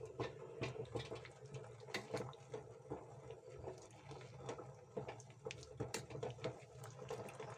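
Slotted steel spoon stirring boiled jackfruit pieces in water in a steel pot: faint sloshing with scattered light clinks.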